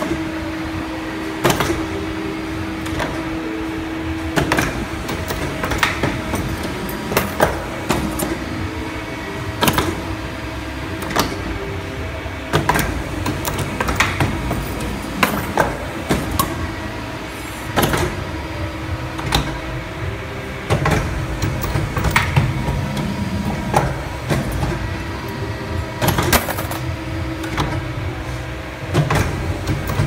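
Hydraulic wire buckle forming machine running, its bending tooling striking with frequent sharp metallic clacks, roughly one or two a second, over a steady machine hum. A steady tone sounds in the first few seconds and then stops.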